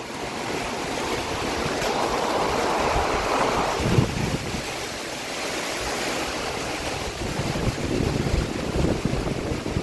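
Strong hurricane-band wind gusting, buffeting the microphone, with a stronger gust swelling about two to four seconds in.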